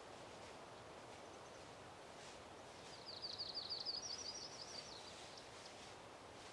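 Faint steady outdoor hiss. Midway through, a small songbird sings a quick run of high repeated notes lasting about two seconds.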